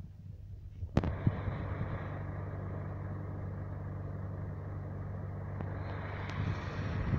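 Street traffic noise with an engine idling steadily beneath it. A sharp click about a second in, after which the traffic noise is louder. The engine's low note drops out near the end.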